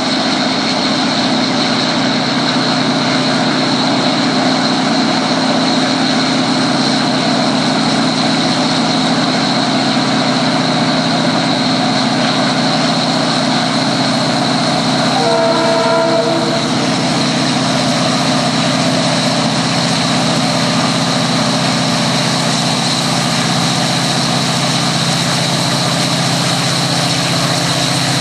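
SŽ 664 diesel-electric locomotive, with its EMD 645 two-stroke V16 engine, running steadily under load as it hauls a freight train past. About halfway through, a short horn blast of a little over a second sounds.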